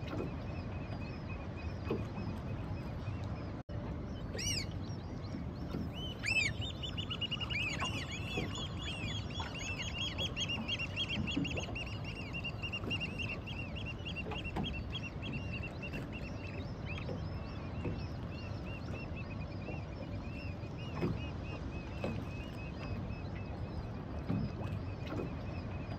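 Gulls calling. A long run of rapid, repeated high calls starts about six seconds in and fades out after about ten seconds, with scattered single calls before and after, over a low steady background rumble.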